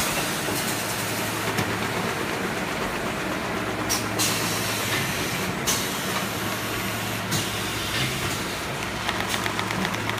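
PE film shrink-wrapping packaging machine running: a steady mechanical hum and hiss, with sharp clacks about four, five and a half and seven seconds in, and fast ticking near the end.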